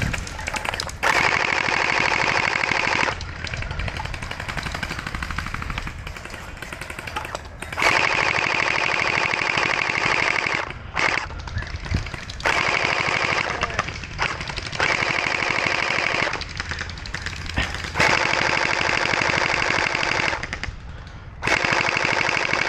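Hydro Strike Pulsar Pro electric gel blaster firing on full auto in repeated bursts of about two to three seconds, each a rapid rattle of shots, with short pauses between bursts.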